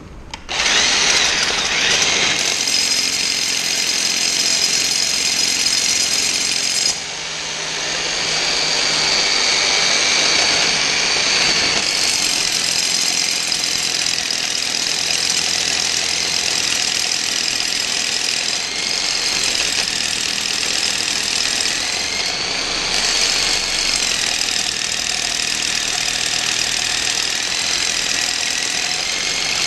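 A loud machine starts abruptly about half a second in and runs steadily, with a high whine that dips and rises a few times.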